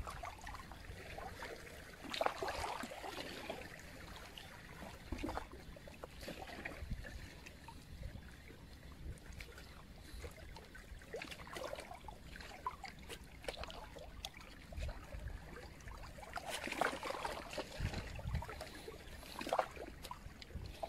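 Small waves lapping and trickling over shallow rocks at the water's edge, in uneven splashes that come louder about two seconds in and again near the end, with an irregular low rumble of wind on the microphone underneath.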